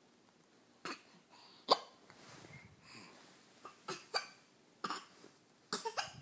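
A baby hiccuping: several short, sharp hiccups at irregular intervals, the loudest about two seconds in and a quick cluster near the end.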